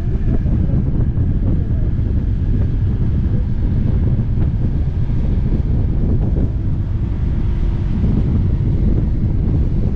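Strong typhoon wind buffeting the microphone: a loud, constant, gusty rumble.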